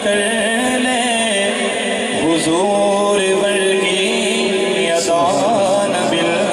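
A man singing a Punjabi naat into a microphone, drawing out long held notes with wavering ornaments.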